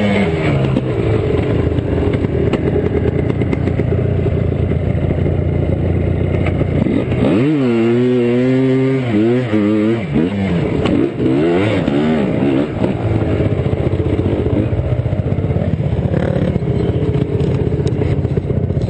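ATV engine running hard in soft sand, its pitch rising and falling as the throttle is worked, with the biggest swoops of revving about seven to ten seconds in.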